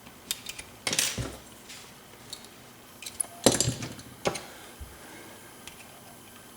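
Metal lock-picking tools clicking and scraping inside the keyway of a Corbin Russwin pin-tumbler cylinder as the pins are worked. The clicks come in two short clusters, about a second in and again around three to four seconds in.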